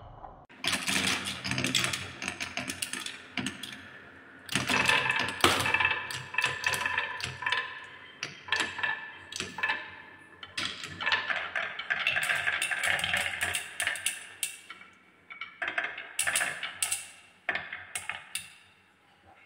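Many small balls rolling and clattering down wooden marble-run tracks, a dense rattle of clicks that comes in several waves with short lulls. It thins to a few scattered clicks near the end as the balls come to rest.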